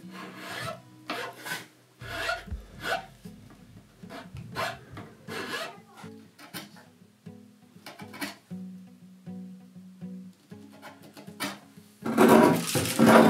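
Hand tools working oak: short chisel-paring and filing strokes on a peg, then from about twelve seconds in, louder, quicker scraping strokes of a hand tool along the slab's live edge. Soft plucked-guitar music plays underneath.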